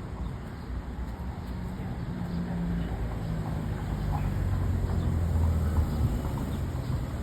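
Street traffic: a motor vehicle's low engine hum, growing louder from about three seconds in as it draws near.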